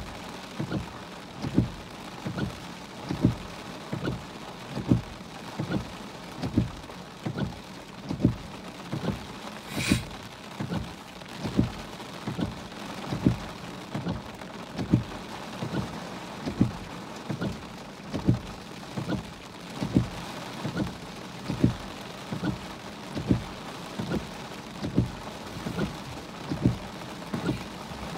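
Heavy rain drumming on a car, heard from inside, with the windshield wipers thumping steadily a little more than once a second. A brief hiss comes about ten seconds in.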